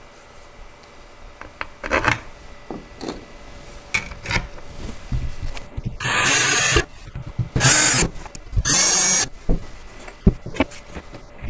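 Cordless drill driving screws into the trundle bed's side piece in three short runs, a little past the middle. Light clicks and knocks of screws and panels being handled come before and after the runs.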